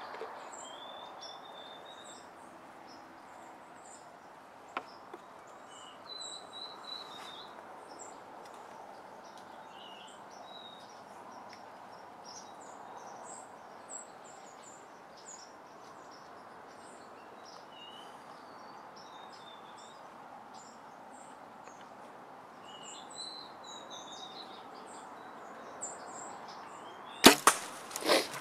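Small birds chirp faintly throughout. Near the end, a bow shot: a sharp double crack as the string releases and the arrow strikes the doe, then a further thump as the deer bolts.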